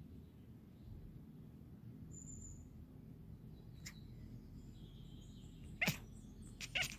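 Scottish Fold cat chattering (cracking) at birds: two short sharp chirping bursts, about six seconds in and again just before the end. Before them there is only a quiet low hum, with faint high bird chirps.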